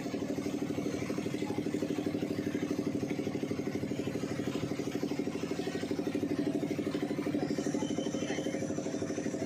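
Motorboat engine running steadily at a constant speed, with a fast, even throb.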